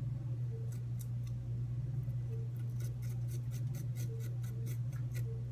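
Garlic being grated: short quick scraping strokes on a grater, a few at first, then about four a second in the second half, over a steady low hum.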